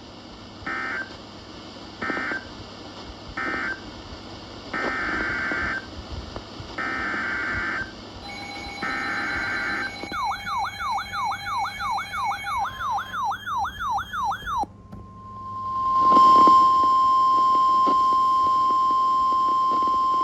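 Emergency Alert System SAME data bursts: three short buzzy bursts (the end-of-message code closing the previous alert), then three longer bursts (the header of the next alert). Next comes about four seconds of a rapid warbling siren-like sweep, about three warbles a second, and then a loud steady single tone near 1 kHz, the NOAA Weather Radio 1050 Hz alert tone.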